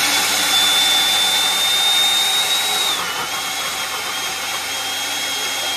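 Countertop blender running while making a smoothie: a steady motor whine that dips slightly in pitch about three seconds in.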